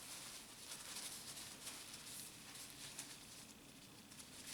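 Faint rubbing of a cloth wiping a wet-sanded aluminium heat sink dry, with soft scratchy strokes that thin out toward the end.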